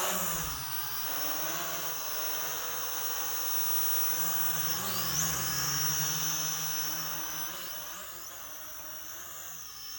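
DM107S folding quadcopter's motors and propellers spinning up sharply at take-off, then a steady high whine as it hovers, the pitch shifting a few times as the motors adjust to hold it in place.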